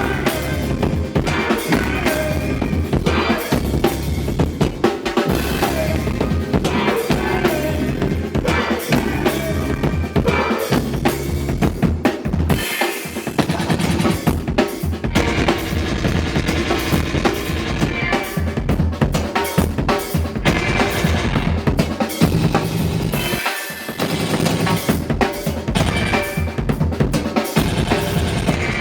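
A rock band playing loud, drum-heavy music, with the drum kit's kick and snare hits the most prominent part; the low end drops out briefly about 13 and 24 seconds in.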